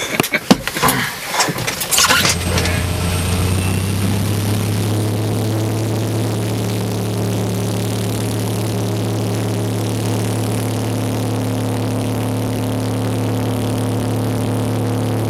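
Light aircraft's piston engine starting about two seconds in, then running at a steady idle.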